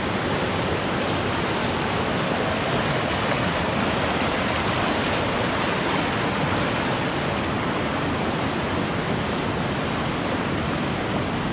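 River water flowing with a steady, even rushing noise.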